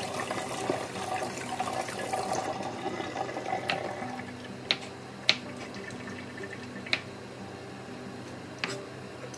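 Kitchen tap water running as a spring onion is rinsed, stopping about two and a half seconds in. A knife then cuts the spring onion on a wooden chopping board, about five sharp separate taps.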